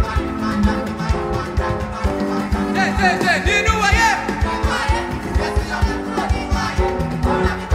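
Live gospel praise band music: guitar over a steady drum beat, with singing that comes to the fore a few seconds in.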